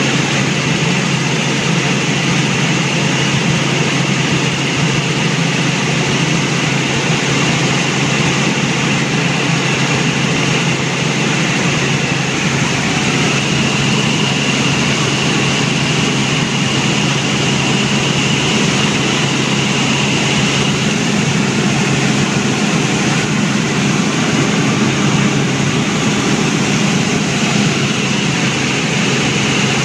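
Helicopter in flight: the rotor and engine keep up a loud, steady drone, as heard on board.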